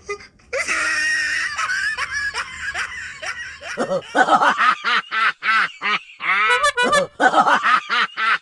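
Laughter: a breathy, hissing stretch that turns into loud, evenly spaced 'ha-ha-ha' pulses about four seconds in.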